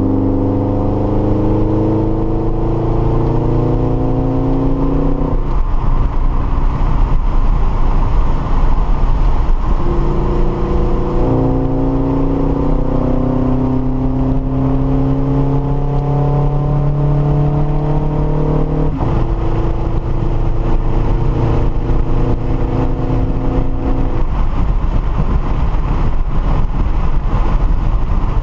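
Subaru BRZ's 2.0-litre flat-four engine, heard from inside the cabin, accelerating hard with a rising pitch. The pitch breaks off about five seconds in, climbs again from about ten seconds, and breaks again near nineteen seconds. It holds steady for a few seconds, then falls away near the end, over steady road noise.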